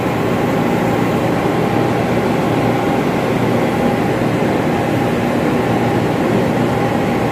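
Steady, loud drone of running ventilation machinery: a low hum with a faint steady whine above it, unchanging throughout.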